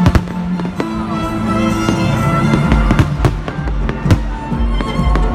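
Fireworks bursting overhead with scattered sharp bangs and crackles, over loud music from the concert stage. A bass beat comes in a little past halfway.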